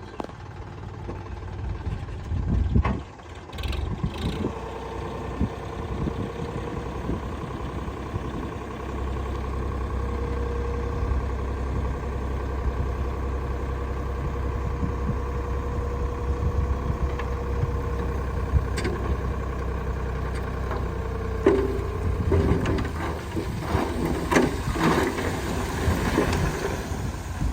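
Heavy diesel machinery running: a steady engine drone with a held tone from about 4 s in to about 22 s. Knocks and clattering come in near the end.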